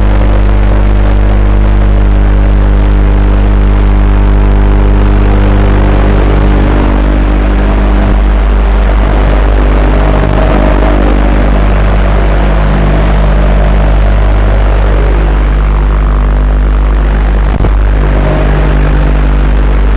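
Motors and propellers of an Arfun 90mm micro racing quadcopter heard through its onboard camera's microphone, loud and continuous: a steady low buzz with a higher whine that rises and falls in pitch as the throttle changes.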